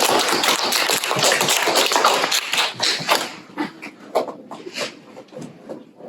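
Audience applauding: dense clapping that thins to a few scattered claps about three seconds in and dies away.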